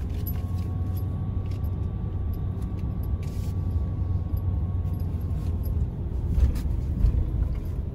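Car driving at low speed, heard from inside the cabin: a steady low rumble of engine and tyres. A couple of louder knocks come near the end.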